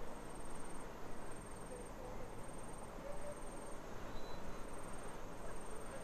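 An insect trilling high-pitched in repeated phrases of about half a second to a second with short breaks, over a steady low background hum.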